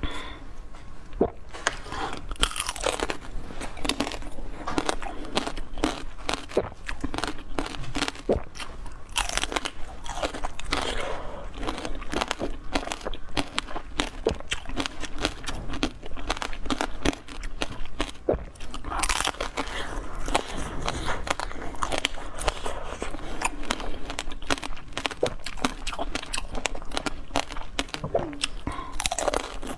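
Close-miked crunching, biting and chewing of food, a dense run of irregular crisp crunches.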